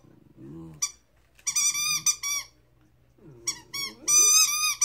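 A 13-week-old Chesapeake Bay Retriever puppy howling in high-pitched, wavering cries. There is one run of cries in the middle and a louder, longer one near the end.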